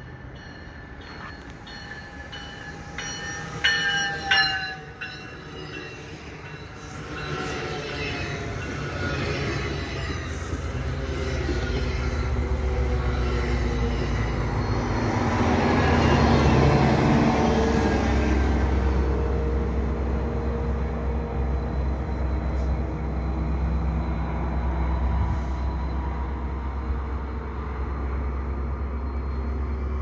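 EXO commuter train's diesel locomotive arriving: horn blasts about four seconds in, then the rumble of engine and wheels builds, loudest as the locomotive passes close by. It settles into a steady low engine drone as the train stands at the platform.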